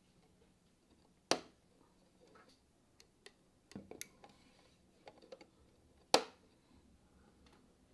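3D-printed plastic rocket-model parts clicking and knocking together as the boosters are fitted to the core stage: two sharp knocks, about a second in and about six seconds in, with a few lighter clicks between.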